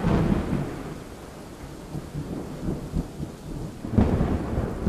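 Thunderstorm: a rumble of thunder dying away over steady rain, then a fresh crack of thunder about four seconds in.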